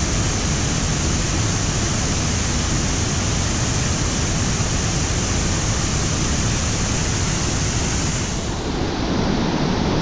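Steady, loud rush of the São Romão waterfall's heavy volume of water, heard close up at the foot of the falls. The sound thins a little in its upper range near the end.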